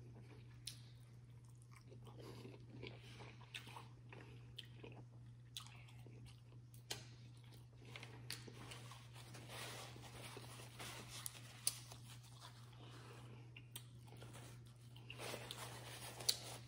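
Close-up mouth sounds of a person eating a seafood boil: chewing and biting with wet smacks and small clicks scattered throughout, busier and a little louder near the end.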